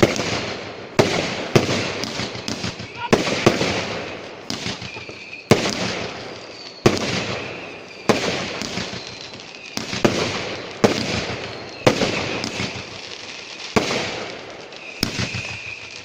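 New Year's Eve fireworks going off: a string of sharp bangs, about one a second, each trailing off in a hissing tail. A few short whistling tones sound between the bangs.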